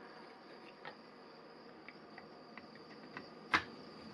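Small plastic clicks and taps from the housing halves of an AEG BS 12 C2 cordless drill being fitted together over the motor, with one sharper, louder knock about three and a half seconds in.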